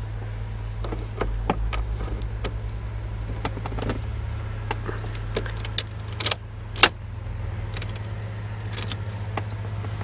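Small metallic clicks and rattles of a Toyota Camry ignition lock cylinder and its key being handled and fitted back into the steering-column housing, the sharpest clicks between six and seven seconds in. A steady low hum runs underneath.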